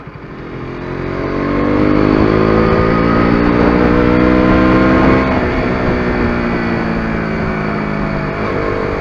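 KTM RC 125's single-cylinder four-stroke engine accelerating hard, its pitch climbing steadily for about five seconds, then dropping suddenly at an upshift and holding nearly steady.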